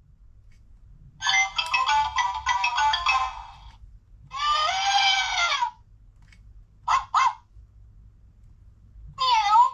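Peppa Pig Flip and Learn toy phone playing electronic sounds through its small speaker. A short tinny ringtone jingle comes about a second in, then a longer sound with a wavering pitch, two quick blips around the middle, and one short sound near the end.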